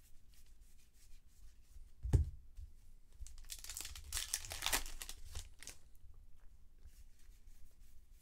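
Baseball trading cards being handled and flipped through in the hands: card stock sliding and snapping with many small clicks, a thump on the table about two seconds in, and a burst of papery rustling around four to five seconds in.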